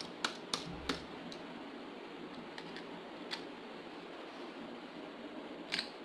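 Light plastic clicks and taps of small toy figures being handled and set down into plastic slime tubs on a table: three quick clicks in the first second, a couple of fainter ones later and one more near the end, over a steady low hiss.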